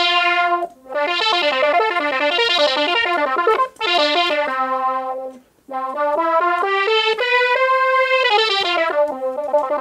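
Melody played on a breath-controlled MIDI ocarina, its notes sounding as a bright synthesizer tone. Quick runs of notes come in two phrases with short breaths between, the second climbing to a held high note before settling on a low one.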